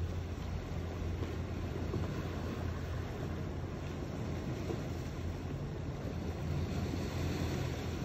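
Steady low rumble at the sea's edge by a lava-rock shore, with waves washing against the rocks under a deep, engine-like hum that adds a slightly higher hum in the last couple of seconds.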